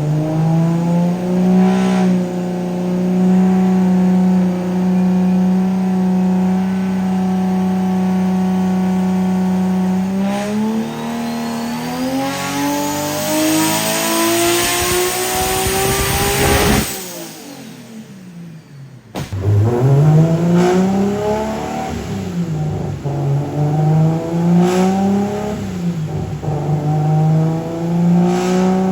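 Nissan R32 Skyline GT-R's RB26 straight-six on a chassis dyno. It is held at a steady speed for about ten seconds, then pulls at full throttle, rising in pitch with a climbing turbo whine, and cuts off sharply about seventeen seconds in. After a brief lull it revs up and down a few times and settles back to a steady hold.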